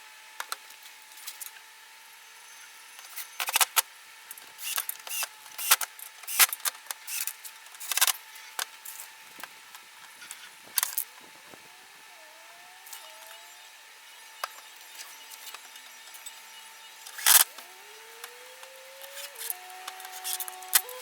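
Scattered clicks, knocks and clatter of tools and hardware being handled, over a faint steady hum. Near the end a cordless drill's motor whines briefly, its pitch rising and falling as it drives screws.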